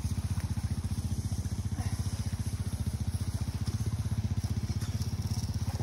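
Four-wheeler (ATV) engine running steadily with a fast, even, low thrum.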